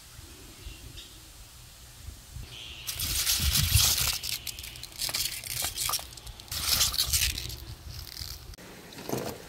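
Freshly picked pea pods rustling and crinkling as a hand rummages through them in a plastic colander, in a few loud bursts starting about three seconds in, after a low rumble.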